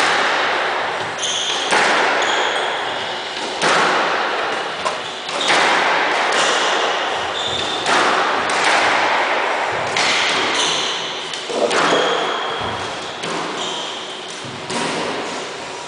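Squash rally: the ball struck by rackets and hitting the walls about every one to two seconds, each hit echoing in the enclosed court, with shoes squeaking on the wooden floor in between.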